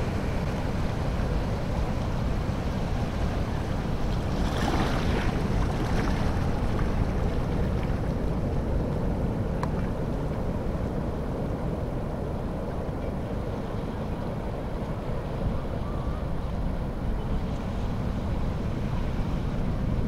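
Ocean surf breaking on the reef and seawater washing across the rocky reef flat: a steady rushing, with one louder surge of breaking water about four to five seconds in.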